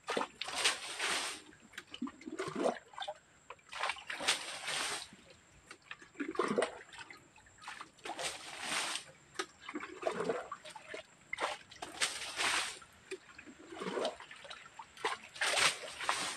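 Muddy water being bailed from a shallow pool with a plastic bucket. Each bucketful is scooped with a slosh and then flung out with a loud splash, about once every four seconds, five times.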